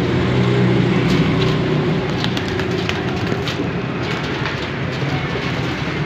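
A steady low mechanical hum, like a motor running, with scattered light clicks and taps over it.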